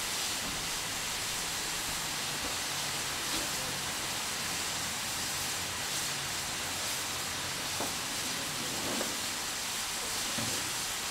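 T3 class steam locomotive No. 563, standing in steam, hissing steadily.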